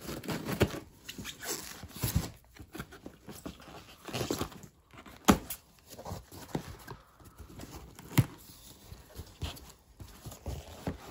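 A cardboard parcel being opened by hand: irregular rustling and tearing of packaging, broken by knocks and sharp clicks, the loudest about five and eight seconds in.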